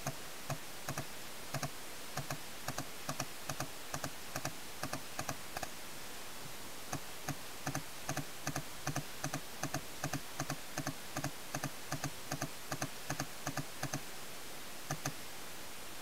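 Paintball markers firing in quick pairs and short runs of sharp pops, pausing briefly about halfway through and stopping near the end, over a steady hiss.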